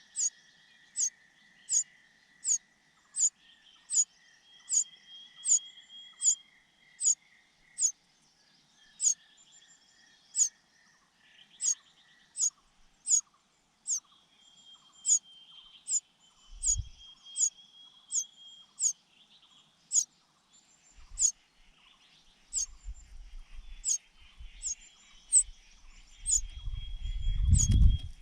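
Young birds begging: a sharp, high-pitched call repeated about three times every two seconds, with a faint thin tone under it in the first half. Near the end low knocks and a rumble come in, loudest just before it ends.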